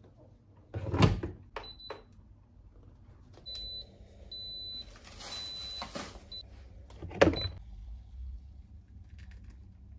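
An electric Turkish coffee machine in use. Its metal coffee pot knocks against the base about a second in and again around seven seconds, with high electronic beeps and a short hiss in between.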